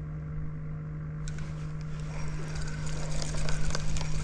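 Boat motor humming steadily. From about a second in, water churning and splashing joins it and grows louder toward the end.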